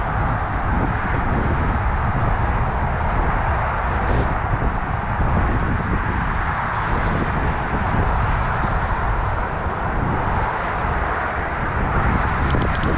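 Steady rolling noise of a Northrock XC00 fat bike's wide Kenda Gigas tyres on a sidewalk, a continuous low rumble with a rushing hiss over it. There is a brief click about four seconds in.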